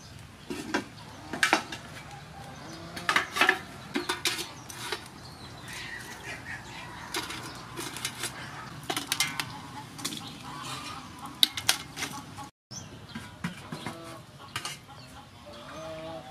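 Metal tongs and an aluminium steamer tray and lid clinking and clattering, a string of sharp metallic knocks as food is loaded into the steamer.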